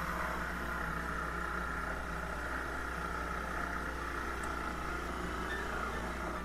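Corded jigsaw running steadily, its blade cutting a rounded corner into a plywood panel.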